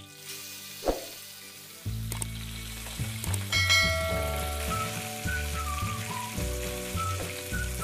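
Whole tilapia shallow-frying in hot mustard oil in a nonstick pan, sizzling steadily, with a single knock of the wooden spatula about a second in.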